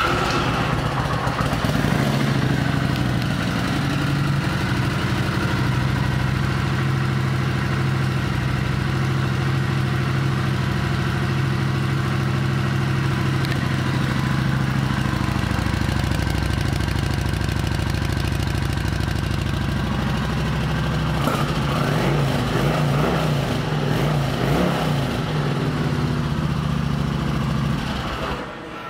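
2009 Kawasaki Vulcan 900 Classic's V-twin engine idling steadily, then revved several times over its last several seconds before cutting off near the end.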